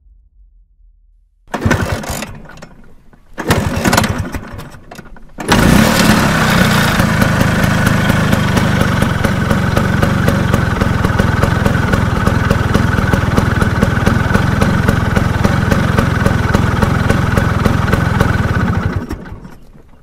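A scooter being kick-started: two short bursts as the engine turns over without catching, then it fires about five seconds in and settles into a steady idle. Near the end it is switched off and dies away.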